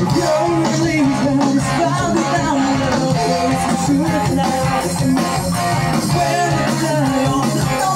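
A live rock band playing loud through a PA: distorted electric guitars, bass guitar and drums, with a lead singer's voice over them.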